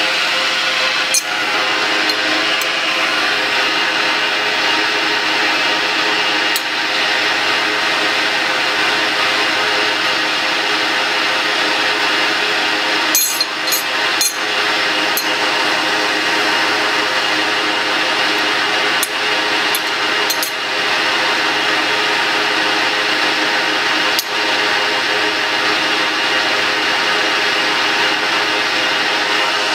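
Blanchard 18-36 vertical rotary surface grinder running under power, a steady machine hum with a few constant whining tones. Over it come short metallic clicks, several close together about halfway through, as a steel wrench is set down on the electromagnetic chuck and handled there.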